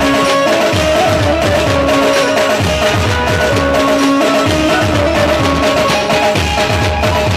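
Dhumal band playing loud processional music: a heavy drum beat under long held melody notes.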